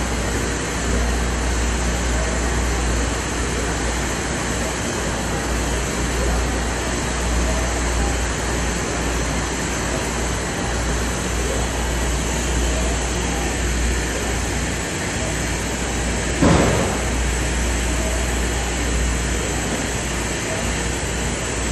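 UV printer running with a steady machine noise and low hum, and a single sharp knock about three-quarters of the way through.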